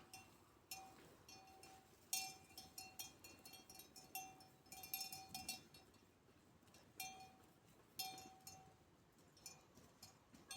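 Bells on grazing sheep, clanking faintly and irregularly as the animals move, with a metallic ring.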